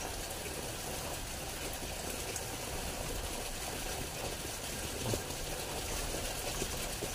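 Steady rush of running water from a small stream.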